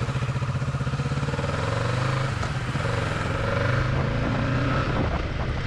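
Kawasaki Ninja 650's parallel-twin engine pulling away from a stop and accelerating. The revs climb, drop back with a gear change about two seconds in, then climb again.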